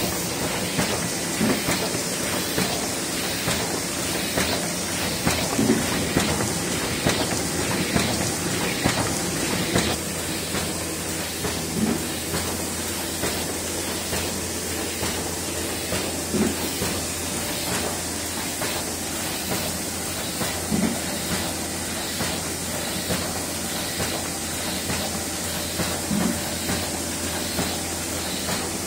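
Old single-colour Miehle Roland Parva sheet-fed offset press running while printing, a steady mechanical clatter and hiss with a heavier knock every few seconds. A low hum becomes steadier about a third of the way in.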